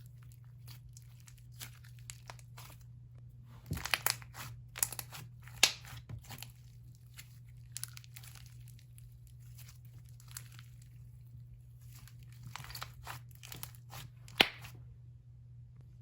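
Hands squishing and stretching a butter slushie slime, giving soft bursts of crackling and popping with pauses between.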